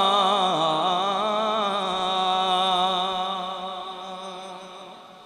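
A man's voice singing the long drawn-out final note of an Urdu devotional verse (naat) into a microphone. The note wavers slightly, dips in pitch about half a second in, is held, then slowly fades away over the last two seconds.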